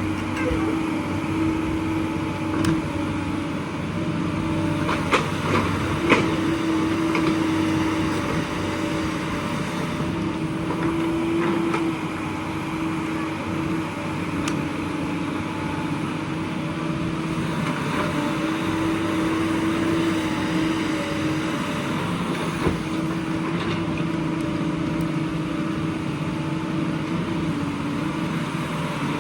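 Excavator's diesel engine running steadily, with a constant droning tone. A few sharp knocks come in the first several seconds.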